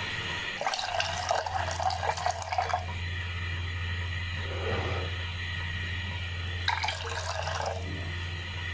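Milky tea boiling in a steel pot on the stove, bubbling and fizzing in two spells, about a second in and again near the end, over a steady low hum.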